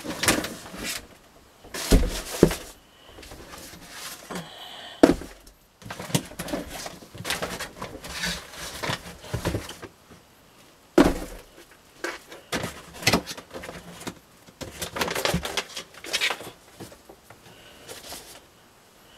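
Belongings being handled and sorted: irregular knocks and thumps as things are moved and set down, with rustling and clatter in between.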